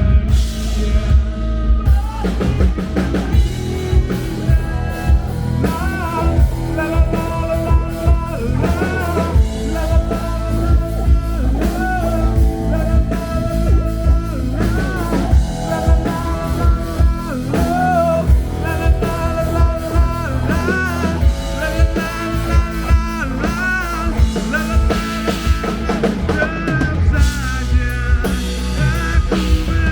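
Rock band playing: drum kit keeping a steady beat under guitars, with a melody line that bends up and down over them.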